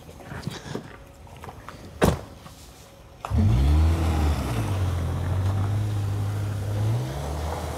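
One sharp knock, then a taxi's engine revs up and runs in a steady low drone as the car pulls away from the curb. Its pitch rises again near the end.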